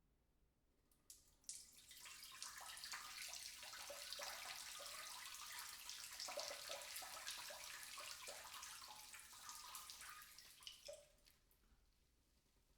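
A person urinating in a bathroom: a couple of faint clicks, then a steady stream splashing into water for about nine seconds, tapering off into a few last drips near the end.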